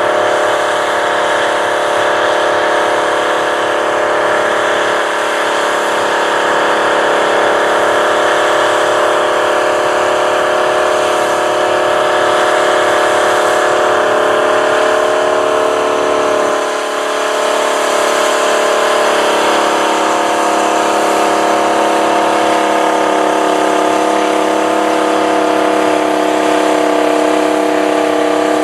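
Big four-wheel-drive Massey Ferguson tractors' diesel engines running under heavy load while pulling a 20-bottom moldboard plow, a steady dense drone. The engine note dips briefly about seventeen seconds in, then settles again at a slightly different pitch.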